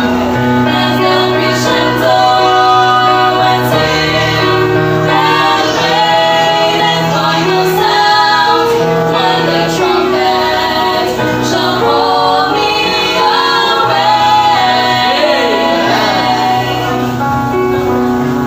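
A vocal trio singing a gospel song in close harmony over instrumental accompaniment, with long held notes.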